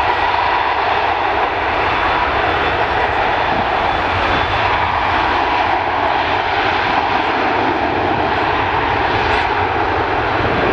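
Airbus A350's Rolls-Royce Trent XWB jet engines running steadily at high power for the takeoff: a loud, even rush of engine noise with a faint steady whine on top.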